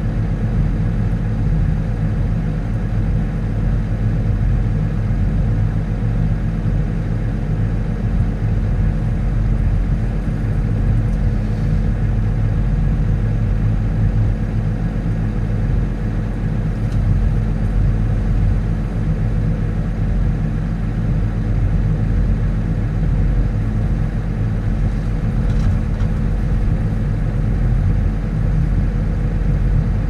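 Tractor engine running steadily at a constant low speed, heard from inside the cab.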